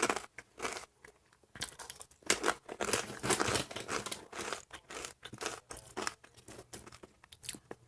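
Irregular crinkling and rustling handling noise, a run of short scrapes and crackles.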